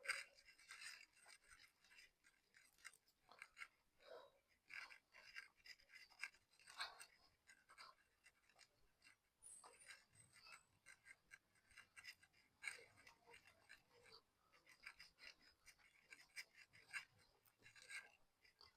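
Faint, irregular scratchy rubbing of a cloth wiping a motorcycle drive chain during cleaning.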